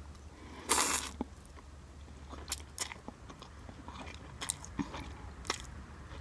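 A person slurping instant noodles off a fork and chewing: one longer slurp a little under a second in, then scattered wet mouth clicks and smacks while chewing.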